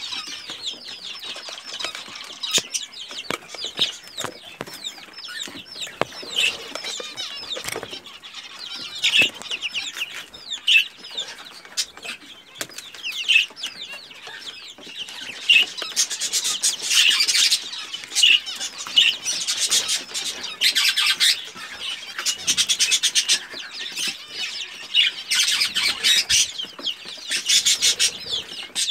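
A brood of Pekin bantam chicks peeping continuously, many short falling cheeps overlapping, with sharp clicks and rustles from their feet and beaks scratching and pecking at chick crumb in a feed tray. The peeping grows louder and busier about halfway through.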